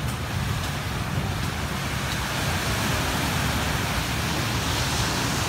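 Caribbean surf breaking and washing up a sand beach in a steady rush, with wind rumbling on the microphone.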